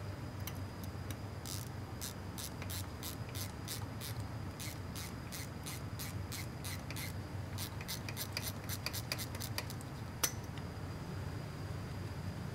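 Hand ratchet clicking in runs of short, sharp clicks as the last bolt holding the transfer case to the transmission is backed out, the clicks coming faster toward the end, with one sharper click about ten seconds in. A steady low hum runs underneath.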